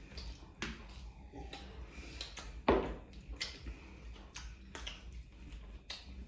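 Close-up eating by hand: chewing and mouth clicks, fingers tearing paratha and picking at food on steel plates, heard as scattered small clicks and smacks, with one louder sharp sound nearly three seconds in.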